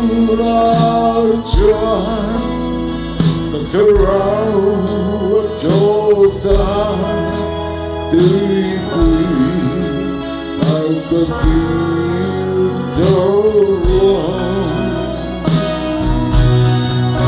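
A man singing a gospel song into a microphone over an amplified live band, with regular beats beneath the voice.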